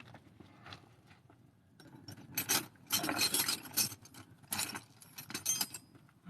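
Metal hand tools rattling and clinking against each other in a series of jangling bursts from about two seconds in, as when sorting through tools for a ratchet or wrench.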